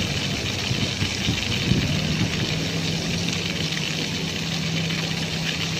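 Ground-level splash fountain jets spraying and falling back onto wet paving, a steady hiss of water, over a steady low hum.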